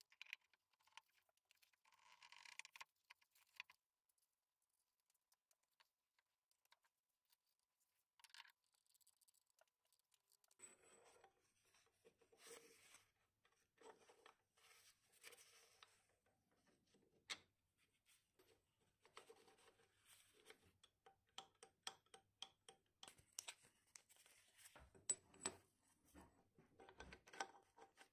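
Faint clicks, taps and scrapes of steel parts being handled and fitted together on a dividing head's spindle by gloved hands. Almost silent for the first several seconds, then scattered small metal clicks that grow busier near the end.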